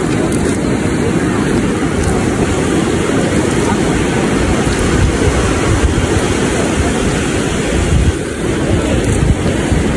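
Surf washing onto the beach, a steady rush of waves, mixed with wind buffeting the microphone.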